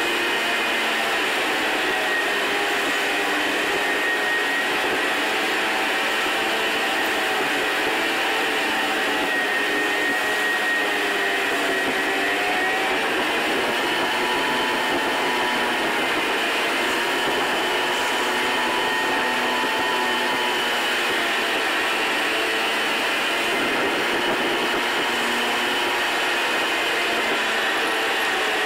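Steady road, tyre and engine noise inside a car cruising at motorway speed, with faint tones that drift slowly up and down in pitch.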